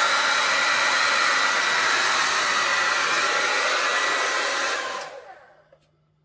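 Hair dryer running on high with the cool setting, a steady loud rush of air with a faint whine. It dies away about five seconds in.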